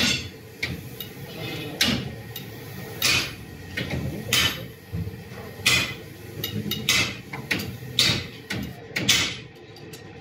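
Sharp metallic clanks and knocks, about one every second or so, from hand tools worked on a Toyota 14B diesel engine.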